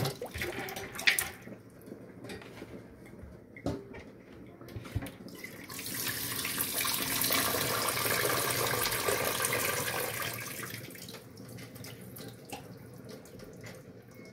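Rinse water being poured off split fava beans through a plastic colander into a kitchen sink: a few knocks of the plastic bowl, then a steady rush of pouring water from about six to ten seconds in that fades to a trickle.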